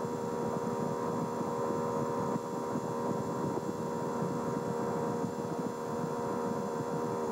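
An engine running steadily at a constant pitch, with wind noise on the microphone.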